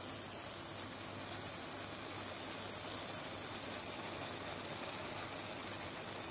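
Pan of chicken cutlets and stewed cabbage, carrot and onion simmering with a soft, steady sizzle, a faint low hum underneath.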